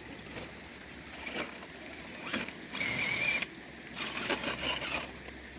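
Small electric motor and gearbox of an RC crawler truck whining in short bursts as it works over tree roots, with scattered clicks and scrapes of the tyres and chassis on the roots.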